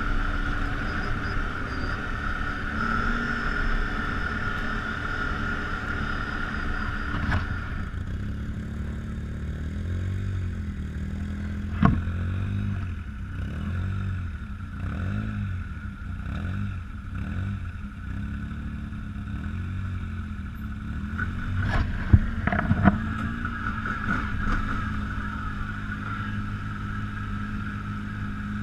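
ATV engine running while riding on a trail, with a steady high whine over it at first and again near the end; in the middle the revs repeatedly rise and fall. A sharp knock sounds midway and two more come later.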